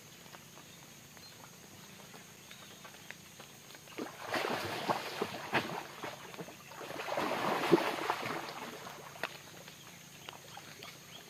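A hooked toman (giant snakehead) thrashing and splashing at the water's surface close to the bank, in two bouts of splashing about four and seven seconds in.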